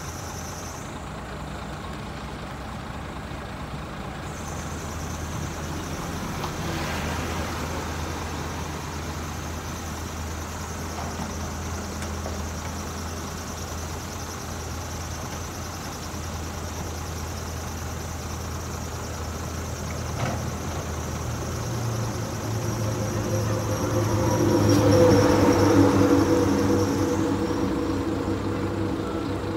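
Heavy diesel engines of an excavator loading a dump truck, running steadily and then revving up louder about three-quarters of the way through as the machine works under load.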